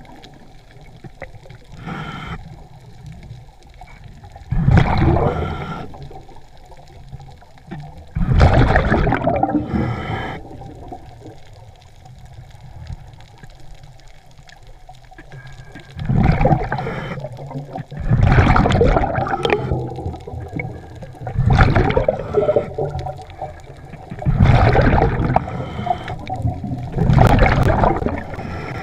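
Scuba diver's breathing heard underwater through the regulator: seven or so loud bubbling surges of exhaled air, each lasting one to two seconds, every few seconds, with quieter water sound between them.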